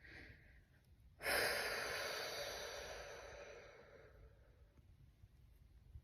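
A person's long breath out, a sigh that starts suddenly about a second in and fades away over about three seconds.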